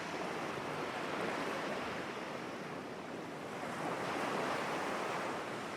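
Ocean surf washing onto a beach: a steady hiss of waves that swells a little about a second in and again about four seconds in.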